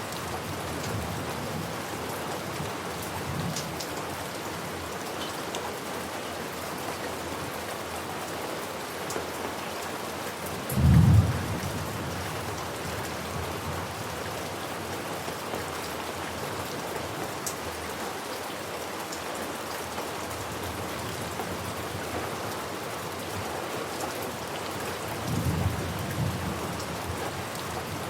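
Steady heavy rain, with a short loud clap of thunder about eleven seconds in and a weaker rumble of thunder near the end.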